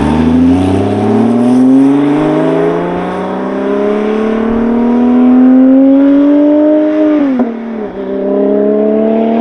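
A car engine accelerating hard, its pitch climbing steadily for several seconds. It drops abruptly at a gear change about seven seconds in, then climbs again in the next gear.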